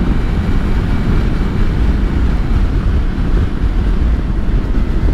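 Steady wind rush on the microphone of a Kawasaki Versys-X 300 motorcycle riding at road speed, with its parallel-twin engine running evenly underneath.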